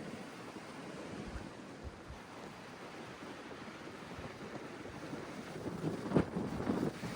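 Steady rushing of wind across the microphone, with louder gusts buffeting it about six seconds in.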